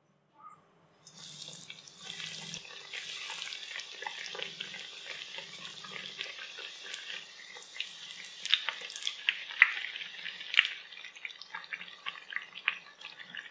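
Egg-and-masala-coated bread pieces deep-frying in hot oil in a pan. A steady sizzle starts about a second in as the bread goes into the oil, with many crackles and sharp pops, the loudest pops in the second half.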